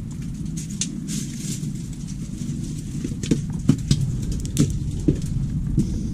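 Steady low rumble of wind on a body-worn microphone, with a run of sharp scrapes and knocks from about halfway through as a climber moves against the rock of a chimney.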